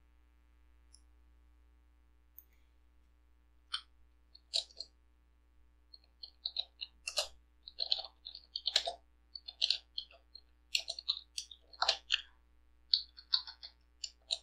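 Computer keyboard typing: irregular, quick keystroke clicks that begin a few seconds in and come several a second toward the end.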